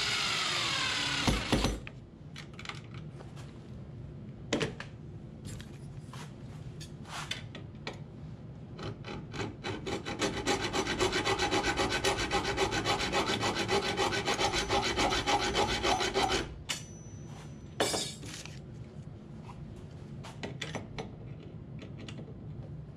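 A cordless drill-driver whirs and winds down as it drives a screw into a metal bolt latch. After scattered clicks, a fast rasping scrape of metal on metal runs steadily for about six seconds and stops abruptly, followed by a single sharp knock.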